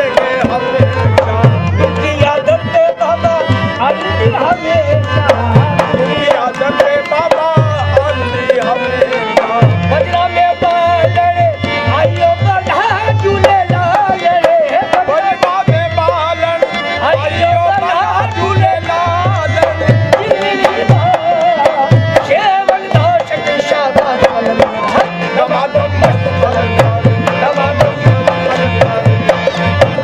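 Live qawwali music: tabla drumming under a wavering sung melody, with hand claps.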